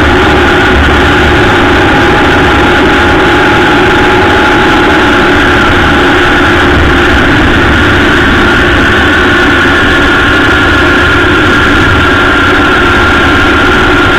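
Honda Gold Wing motorcycle cruising at steady road speed: a loud, unbroken mix of engine, tyre and rushing-air noise picked up by a camera mounted low on the bike's fairing.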